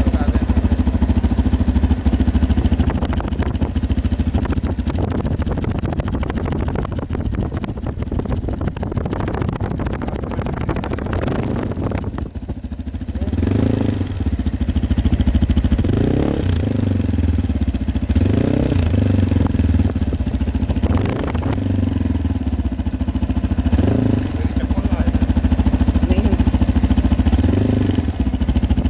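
Zongshen RX3's single-cylinder engine running through its stock Euro 5 exhaust, idling steadily at first. From about halfway through it is blipped in short revs, about one every two to three seconds.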